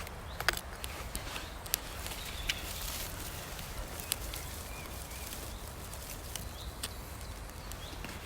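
Rainy woodland ambience: a steady hiss with scattered sharp taps and clicks, a few of them louder.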